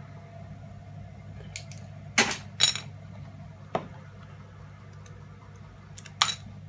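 Small brass and metal plug parts clinking and clicking as electrical plugs are taken apart for scrap: a handful of sharp clinks, the loudest two about two seconds in, over a steady low hum.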